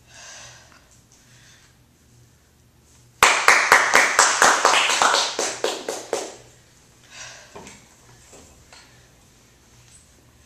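A small group clapping, starting suddenly about three seconds in at about five claps a second and dying away after about three seconds.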